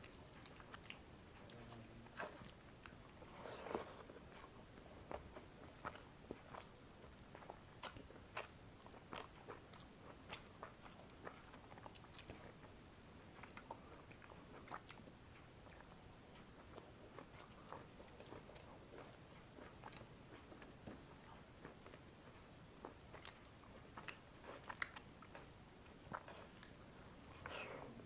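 Faint close-up chewing and biting of a rice-and-curry meal, with many small scattered mouth clicks and smacks.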